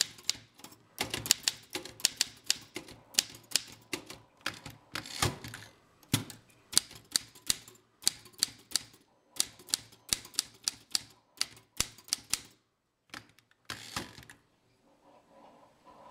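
Manual typewriter typing: type bars striking the paper in an uneven run of sharp clacks, several a second, that stops a couple of seconds before the end.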